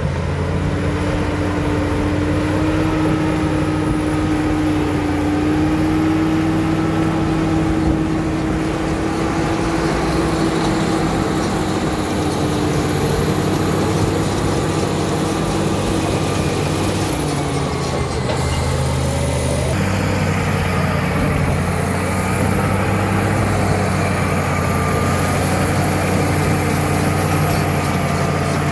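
Caterpillar D7 crawler bulldozer's diesel engine running under load as it pushes earth with its blade, with a steady whine over the engine for the first half or so. The engine note shifts briefly about two-thirds of the way through.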